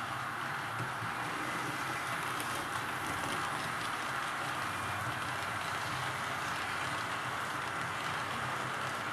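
Märklin H0-scale model freight train of tank wagons rolling past on the layout's track: a steady, even rattling hiss of the wheels running on the rails, with a low hum under it.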